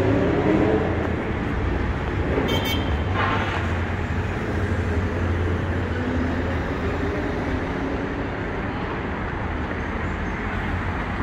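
Steady city avenue traffic noise: engines of cars, trucks and buses running and passing, with a low hum underneath. A brief high-pitched squeak cuts through about two and a half seconds in.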